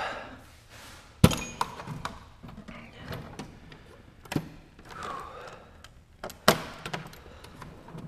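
Steel Craftsman tool chest drawers being worked, with sharp metal clunks about a second in and again about six and a half seconds in, and lighter clinks and rattles of sockets and tools as a hand rummages in a drawer.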